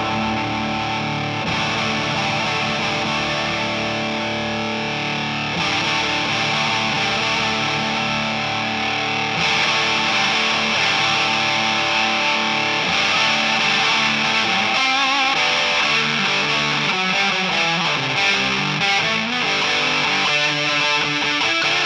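Single-coil electric guitar played through an O.C.E. Hammer Big Muff-style fuzz pedal into a Two-Rock amp, heavily distorted, with the pedal's tone set for more mid-range bite. The treble grows brighter in steps about 1.5, 5.5 and 9.5 seconds in.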